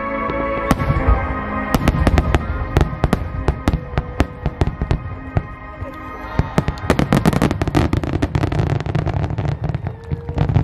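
A starmine barrage of aerial firework shells bursting: dozens of sharp bangs in rapid succession, densest about seven seconds in. Music plays underneath, clearest in the first couple of seconds.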